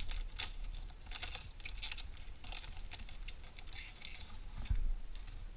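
Foil wrapper of a Panini Zenith hockey card pack being torn open and crinkled in the hands: quick, irregular crackles, with a dull knock about three-quarters of the way through.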